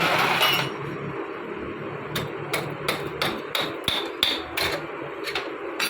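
About a dozen quick hammer blows on a motorcycle engine's metal, roughly three a second, starting about two seconds in, some with a ringing note. They knock the cylinder loose from a seized piston.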